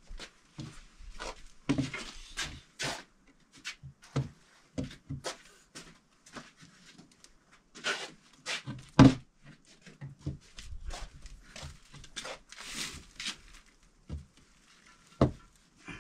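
Scattered knocks, taps and clatter of things being handled, irregular rather than rhythmic, with the loudest knock about nine seconds in and another sharp one near the end.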